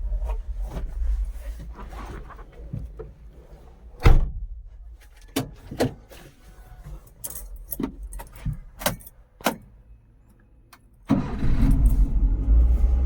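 A string of sharp clicks and knocks with a jangle of keys around a car, then a car engine's low running rumble comes in suddenly near the end.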